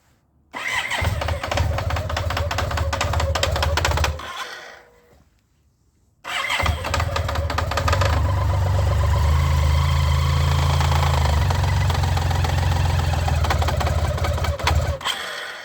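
BMW K75 RT's three-cylinder engine started and run at low revs in two goes: it stops about four seconds in, starts again about two seconds later and runs until it is switched off near the end. A fast metallic clicking rides on the engine sound at low rpm, the fault the owner is trying to trace.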